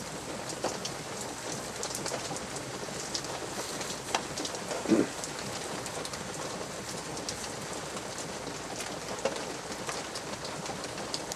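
Light rain pattering steadily, with many small scattered drips and ticks. A brief low sound comes about five seconds in.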